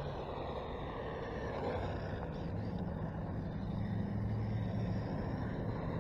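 Tamiya FF-03 radio-controlled car running on asphalt: a steady rumble with wind noise, and a faint whine that falls and then rises in pitch as the car's speed changes.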